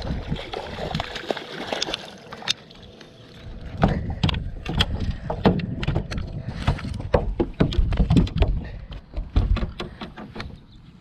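A hooked largemouth bass splashing at the surface beside the boat, then, from a few seconds in, a run of thumps and knocks as the bass flops on the boat's carpeted deck and is handled.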